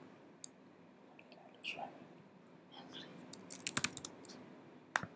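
Faint, scattered keystrokes on a computer keyboard, a few isolated taps then a quick run of keys, as a password is typed into a login form.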